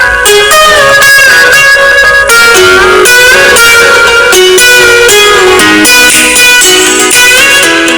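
Background music led by guitar: plucked and strummed notes in a steady, lively run of changing pitches.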